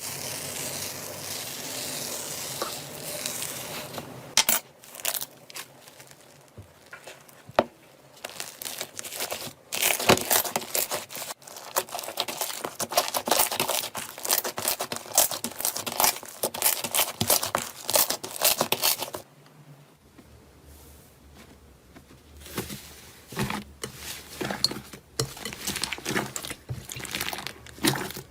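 Slime being squeezed and poked by hand in several short clips, with dense crackling, clicking and popping. It is loudest in the middle stretch, with quieter gaps between clips.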